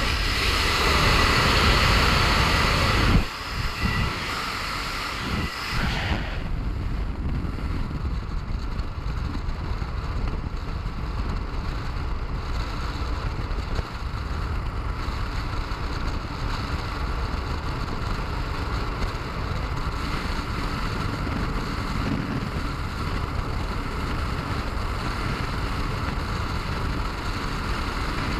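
Freefall wind rushing over a skydiver's camera microphone: steady, rumbling wind noise, louder for about the first three seconds.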